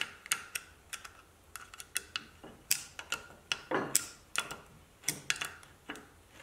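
Irregular small metal clicks and clinks from a hex key working bolts into an aluminium bar on a linear slide, with tool and parts tapping on a steel bench; a few louder knocks come about halfway through.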